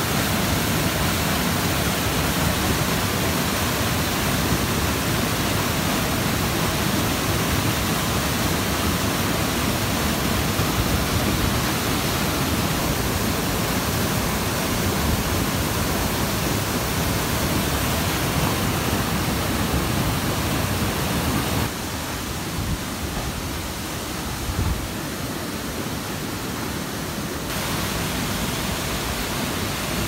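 Waterfall: a steady rush of falling water, dropping slightly in level about two-thirds of the way through and rising again near the end.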